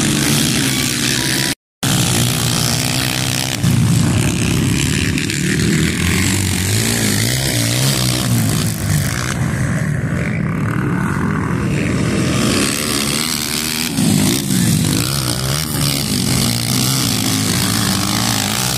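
Dirt-bike engines racing on a motocross track, revving up and down as the bikes accelerate and pass. The sound cuts out for a moment about two seconds in.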